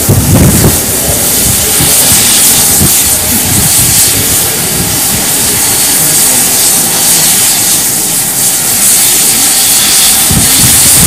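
Steady loud hiss of steam escaping from steam locomotive No. 3850, a GWR 2884-class 2-8-0, standing in steam.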